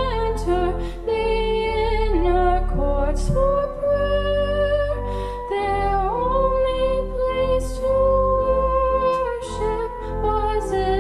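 A woman soloist singing a slow hymn in long held notes that slide from pitch to pitch, over a sustained instrumental accompaniment.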